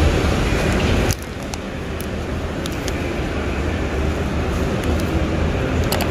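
Steady rushing background noise that drops suddenly about a second in and then slowly builds again, with a few light crinkles from a plastic bag being handled.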